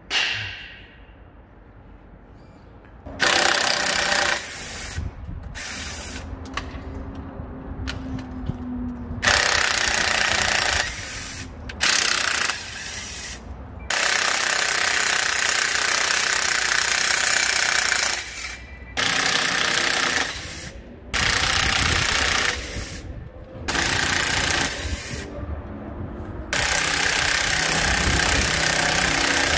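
A power tool running in repeated bursts of one to four seconds, about ten times, with short pauses between.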